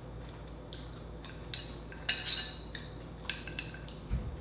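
Clam shells clinking against each other and against a glass bowl as they are picked through by hand: a handful of sharp, bright clinks over a couple of seconds, then a soft thump near the end.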